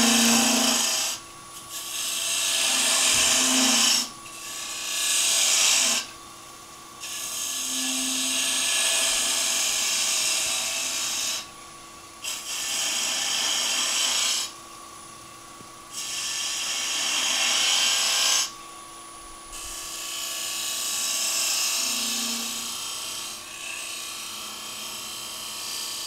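Hand-held turning tool cutting a spinning wooden finial on a wood lathe, in about eight separate passes, each one to four seconds of high scraping hiss. Between the passes the lathe runs on with a steady hum.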